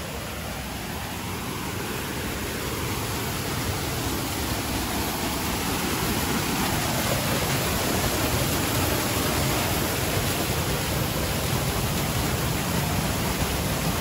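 Piney Run waterfall's rushing water, a steady hiss that grows gradually louder over the first several seconds and then holds.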